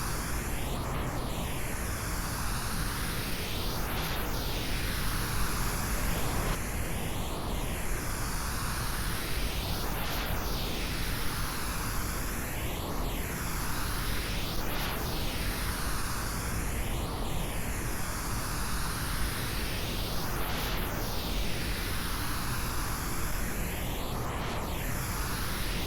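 Steady pink noise given an 8D panning treatment, so it seems to circle around the listener's head. A soft sweeping shift in its tone comes round every two to three seconds.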